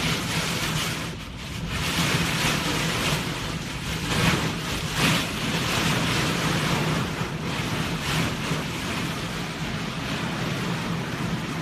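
Storm wind and heavy driving rain, a dense rushing noise that swells and eases in gusts, with the wind buffeting the microphone.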